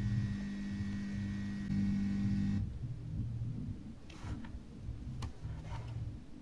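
Steady electrical hum that cuts off suddenly about two and a half seconds in, followed by a few faint clicks and scrapes of small-scale handwork on wire.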